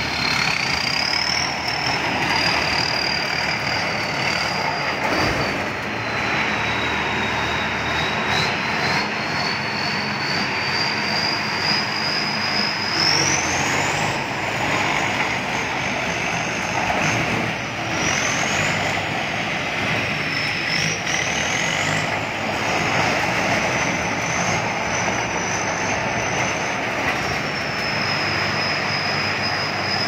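Tracked rice combine harvester driving and turning on a paved road, its engine running steadily under load, with a high whine that rises and falls again and again.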